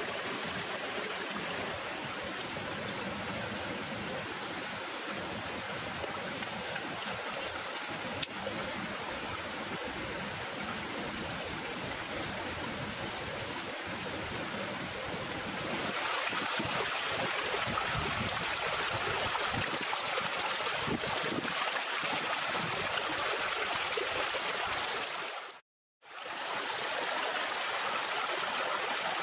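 Shallow rocky stream rushing over stones: a steady rush of water that grows louder a little past halfway and drops out for a moment near the end.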